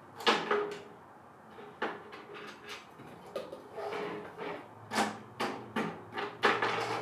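Plastic dinosaur action figures, a Mattel Scorpios Rex among them, knocking and clattering against each other and the tabletop in a series of sharp knocks. The knocks are loudest just after the start and come in a quick run of about five near the end.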